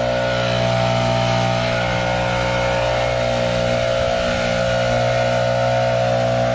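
Gas backpack leaf blower running steadily at high throttle, its engine drone and air rush holding an even pitch.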